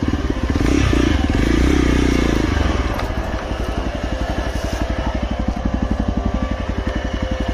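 Hero XPulse 200's single-cylinder engine revving up for the first couple of seconds, then running at a low, even chug as the bike rolls slowly.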